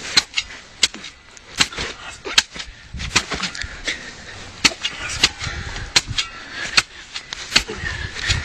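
Metal blade of a long-handled digging tool chopping into wet soil and turf along a trench: a string of sharp, irregular knocks, roughly two a second.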